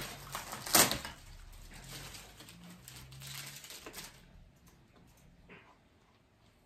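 Plastic packaging crinkling and rustling as it is handled, with one sharp crackle about a second in; the rustling dies away after about four seconds.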